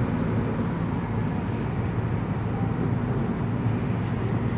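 Steady low road and engine noise of a car driving at highway speed, heard from inside the cabin.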